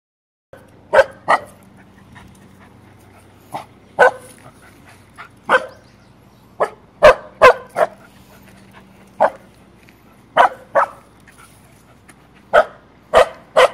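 Young Samoyed barking in short, sharp barks, about sixteen in all, irregular and often in quick pairs, alarm barking at something moving across the street.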